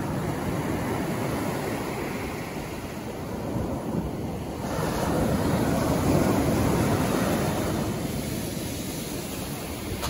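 Ocean surf breaking and washing up a pebble beach, the rush swelling louder about five seconds in and easing off again.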